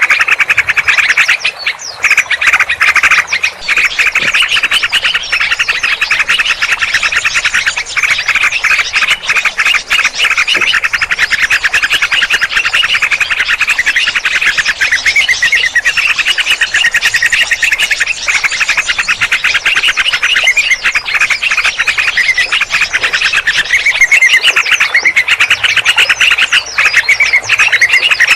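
A dense mixed chorus of small birds chattering and chirping rapidly without a pause: a 'noisy birds' lure recording of the kind played to draw birds in for trapping.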